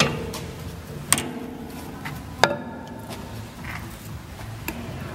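Round wooden turned blanks being handled on a copy-milling lathe, knocking against its steel frame and guides: four sharp knocks, the first three ringing briefly, over a low steady hum.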